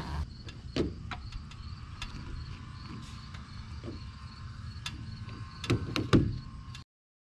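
Vinyl wrap being peeled off a cargo trailer's side by hand: irregular crackles and knocks, with a few louder ones about six seconds in, over faint insects chirping. The sound cuts off abruptly just before the end.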